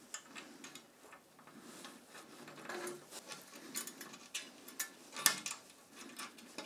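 Faint small metallic clicks and ticks as a pin and ring safety clip are worked into a bracket on an aluminium tube, the sharpest click about five seconds in.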